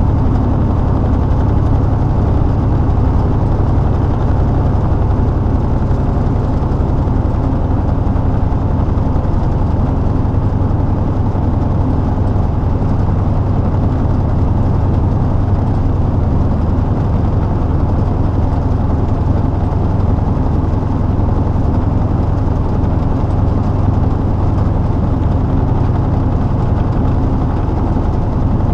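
Semi-truck diesel engine running steadily at highway cruise, heard inside the cab as a constant low drone mixed with road noise.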